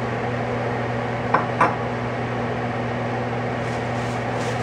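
A steady low mechanical hum with a whir, and two light clinks of kitchenware about a second and a half in, a third of a second apart.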